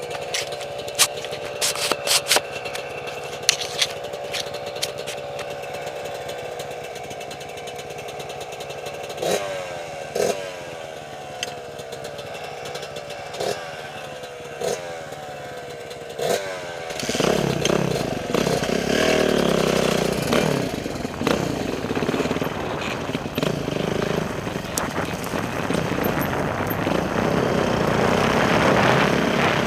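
Motorcycle engine idling steadily, with a few sharp clicks and clatter in the first seconds. From about nine seconds in it gives a series of short revs, about one a second. From about seventeen seconds it pulls away and runs louder under load, with a rushing noise over the engine.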